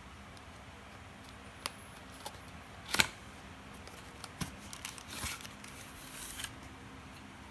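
Paperboard phone-case box being opened by hand. A few light clicks and one sharper snap about three seconds in, then scraping and rustling as the inner tray holding the case slides out.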